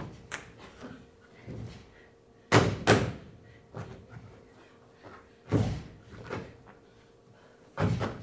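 A dancer's body striking a stage floor: separate sharp thuds and slaps, a pair of loud ones close together about two and a half seconds in, another about five and a half seconds in and one near the end, with softer knocks between.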